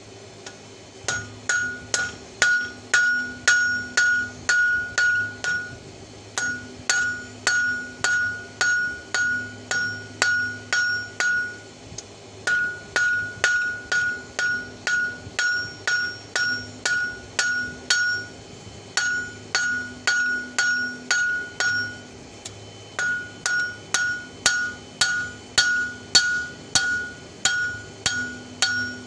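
Blacksmith's hand hammer striking the red-hot open end of an old wrench on a steel anvil, forging it into fork tines. About two blows a second in runs of several seconds with short pauses between, each blow ringing with a clear note.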